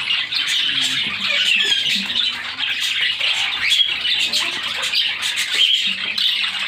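Pet budgerigars and cockatiels calling together: a dense, unbroken chatter of many short chirps and quick rising and falling notes.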